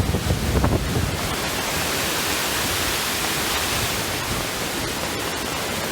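Steady rush of a waterfall swollen by heavy rain, mixed with the rain itself. Low wind buffets hit the microphone in the first second.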